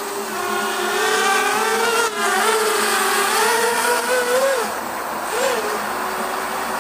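JJRC P175 brushless FPV racing quadcopter's motors and propellers whining in flight, the pitch rising and falling as the throttle changes. It is louder and higher from about one to four and a half seconds in, then drops, with one short rise after five seconds.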